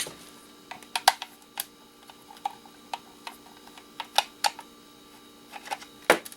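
Irregular sharp clicks and taps of hard plastic electronic scrap being handled, the loudest about six seconds in, over a steady electrical hum.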